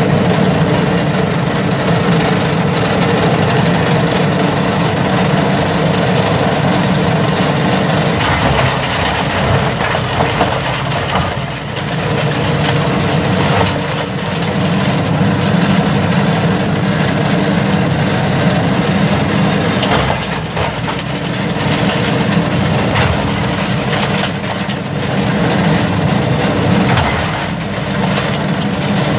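Compact tractor engine running steadily under load while a tractor-drawn side-discharge mulcher shreds prunings and cover crop, with scattered cracks and crunches of wood being chopped.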